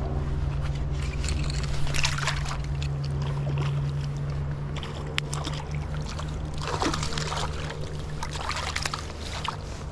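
A high, fast river running steadily, with several short splashes and sloshes at the water's edge.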